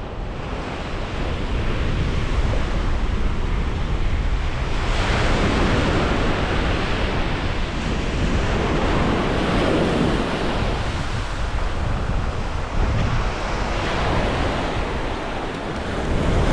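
Ocean surf breaking and washing up a sandy beach in a steady rush that swells several times, with wind rumbling on the microphone.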